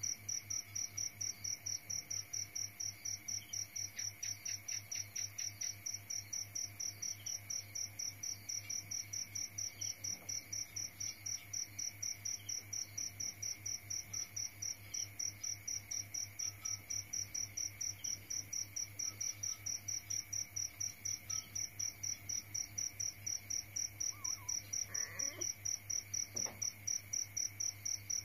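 High-pitched, cricket-like insect chirping, repeating in a rapid, even rhythm without a break.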